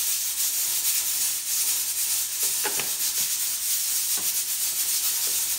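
Black pepper shaken from a shaker container onto a tub of flour: a steady, high rattling hiss, with a few light clicks and knocks a little past halfway.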